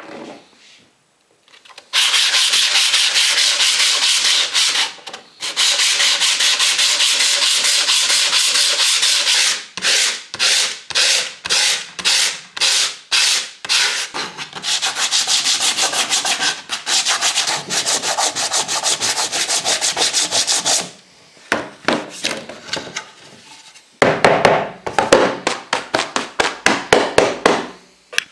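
A sanding block, sandpaper wrapped on a wooden block, scrubbing the dried white rabbit-skin-glue ground on a wooden tray smooth before painting. It goes in long continuous passes, broken by short back-and-forth strokes about two a second, with quicker strokes near the end.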